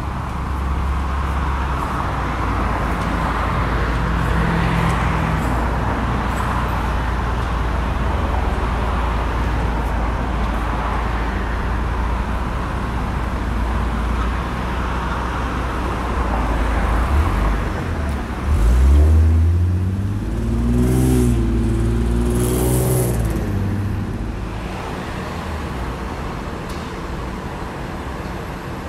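Steady low rumble of a running vehicle engine with road noise. About two-thirds through, an engine revs up, wavers in pitch for a few seconds, and settles back down.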